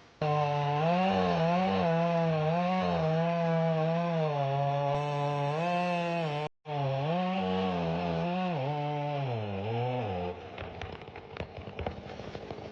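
Chainsaw running at high revs while cutting into a tree, its pitch wavering up and down with the load. The sound drops out briefly about six and a half seconds in. Near the end the saw drops away, leaving scattered cracks and clicks.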